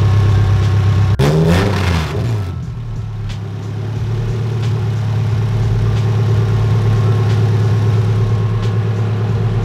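Toyota AE86's 4A-GE twin-cam inline-four idling on open headers, with no exhaust fitted. Just after a second in it gives a brief rise and fall in pitch, then settles back to a steady idle.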